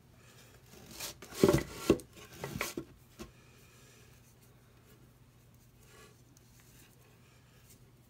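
Rubbing and handling noise of a cord being worked through a small wooden frame, with two sharp knocks about one and a half and two seconds in and a few lighter ones after; then only faint room hum.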